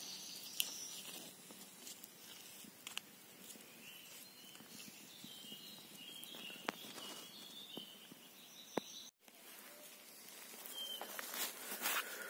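Quiet forest ambience: soft rustling of grass and leaf litter with a few light clicks as a mushroom is handled, and faint high chirps in the middle. Near the end the rustling grows louder as footsteps move through the leaf litter.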